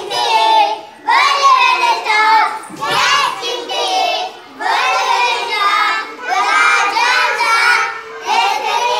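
A group of young children singing a rhyme together in unison, in short phrases with brief pauses between.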